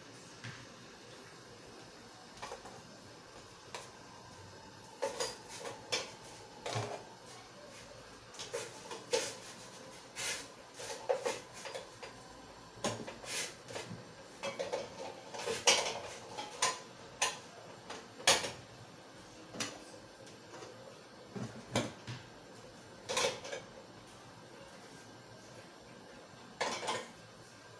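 Metal moi-moi cups clinking and knocking against a stainless steel cooking pot and against one another as they are set into it one after another. The clanks are irregular and separate, each with a short metallic ring.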